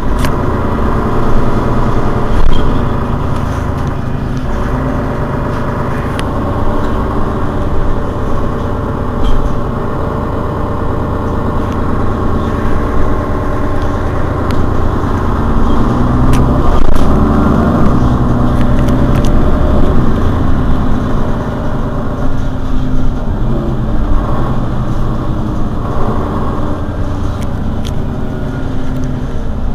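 Mercedes-Benz Citaro city bus's rear-mounted diesel engine idling steadily while the bus stands still, its note swelling a little for a few seconds past the middle.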